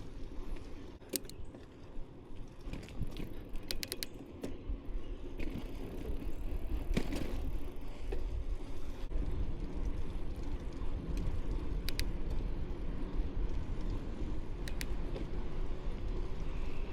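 1994 GT Timberline mountain bike being ridden: a steady low rumble of rolling and wind, growing a little louder about halfway in, with occasional sharp clicks and rattles from the bike.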